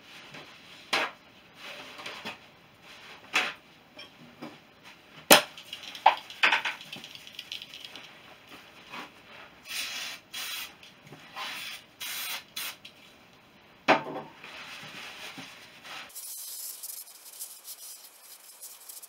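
Aerosol brake cleaner sprayed in short hissing bursts into a motorcycle's front brake drum to clear contamination, among sharp knocks and clatter of metal parts being handled. A rag rubs inside the drum near the end.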